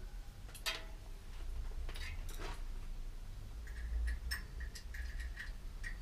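Small metallic clicks and ticks as a bicycle brake cable is fed into the brake lever: a few separate clicks at first, then a quicker run of light ticks, about four a second, in the second half.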